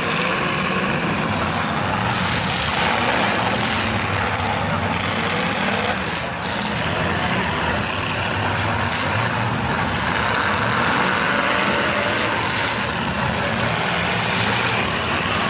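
Engines of old full-size demolition-derby cars running and revving as they push and ram one another, over the steady noise of a crowd, with a few knocks of cars colliding.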